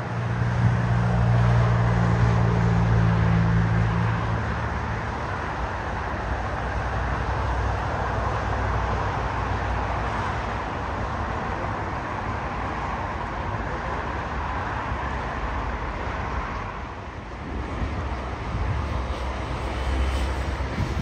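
Jet airliner engines running on the ground, a steady distant roar, with a low hum during the first few seconds.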